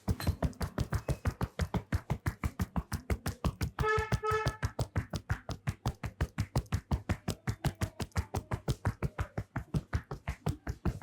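Hands striking a head in rapid rhythmic tapotement during an Indian head massage (champi): a steady drumming of sharp taps, about six or seven a second. Two brief high pitched notes sound over it about four seconds in.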